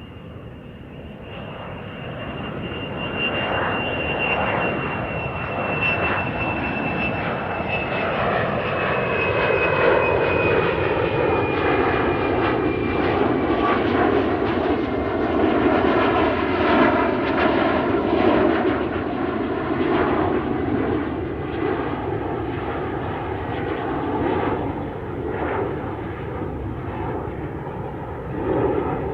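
Aeroplane engines on a landing approach, growing louder over the first ten seconds and then holding loud as the aircraft passes close. A thin high whine slowly falls in pitch over the first half.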